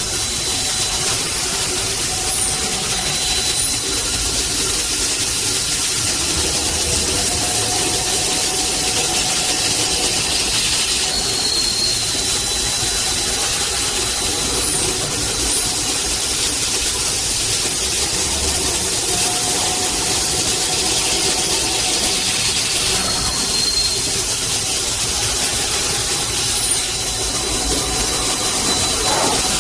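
Kotec Newrun 10DX H-beam drilling line running: steady industrial machine noise with a hiss over it and a faint high whine. The hiss grows stronger during the first few seconds and again near the end.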